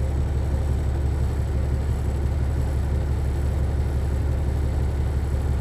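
Steady low rumbling hum that does not change, with nothing else standing out.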